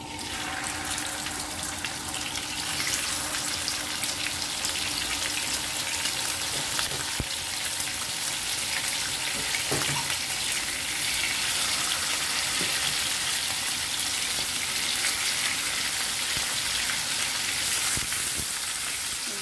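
Salted fish pieces sizzling and crackling in hot oil in a frying pan, the sizzle starting as the first pieces go in and getting louder a few seconds later as more are added, then holding steady.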